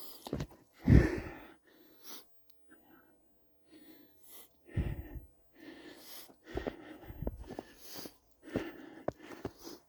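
Footsteps crunching in snow, uneven and spaced apart, the heaviest step about a second in.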